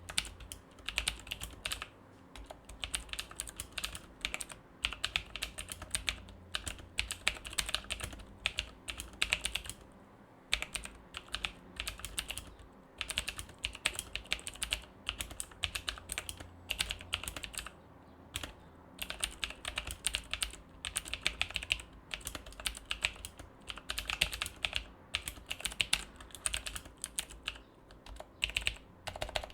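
Typing on a mechanical keyboard with clicky Outemu Blue switches spray-lubed with silicone lube. Rapid runs of keystroke clicks come in bursts, with brief pauses between them.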